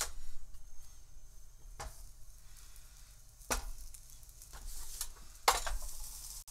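Chicken burger patties starting to sizzle faintly on a hot OptiGrill contact grill, with a few knocks as they are laid on the ribbed plate. The grill's lid shuts with the loudest clack about five and a half seconds in.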